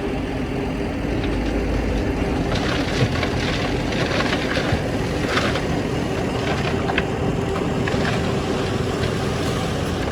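Heavy construction machine's engine running steadily, with brief rattles and scrapes over it.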